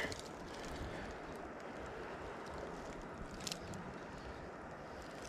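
Steady, even outdoor rush of a flowing river and light air, with one faint click about three and a half seconds in.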